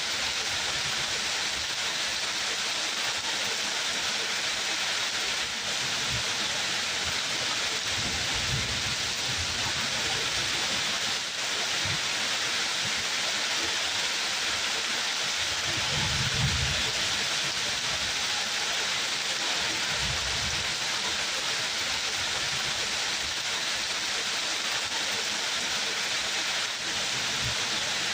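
Steady, dense rainfall hissing without a break, with a few brief low rumbles in the middle.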